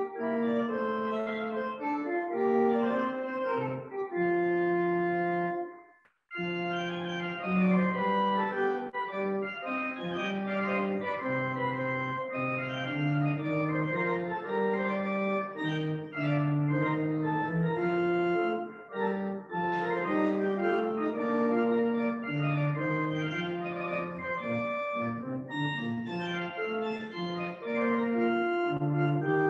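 Pipe organ played, sustained chords with moving inner and bass lines. The sound cuts out for a moment about six seconds in and then resumes.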